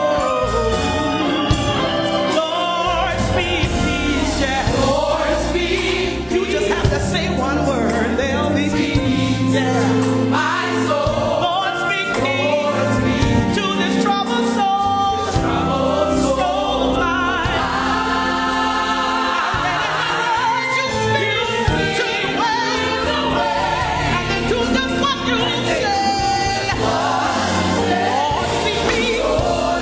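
Gospel song with a choir singing over a band with bass and drums.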